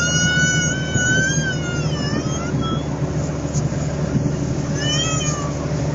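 Steady low engine and road hum heard from inside a moving vehicle's cab. Over it, a high held tone wavers and slides down during the first couple of seconds and comes back briefly about five seconds in.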